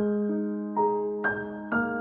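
Slow, gentle piano music: single notes struck about every half second and left to ring out.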